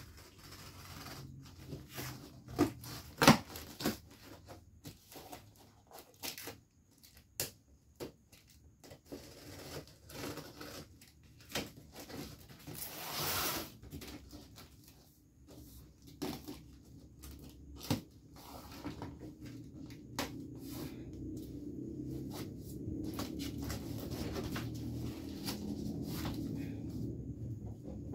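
A cardboard box being opened by hand: the packing tape is slit with a utility knife, with scattered taps and knocks on the cardboard and a longer tearing scrape about halfway through. Later the flaps are folded open, with a steadier low rustling rumble.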